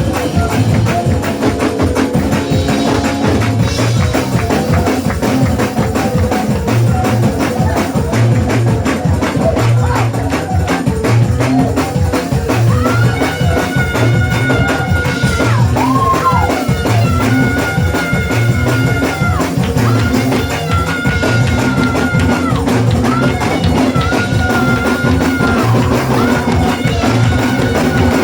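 Church praise music played live: tambourine and drums over a steady, repeating bass line, with long held high notes joining about halfway through.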